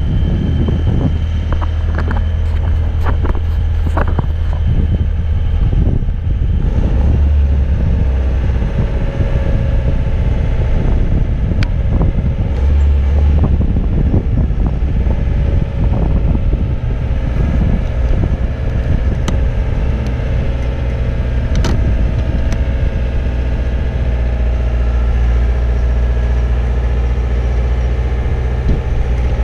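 Boom lift's engine running steadily while the basket is driven with its joystick control, the low rumble swelling briefly twice.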